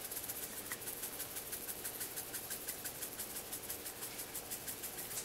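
Dried parsley shaken from a small spice jar into a container of flour: a faint, quick, even rattle of several shakes a second.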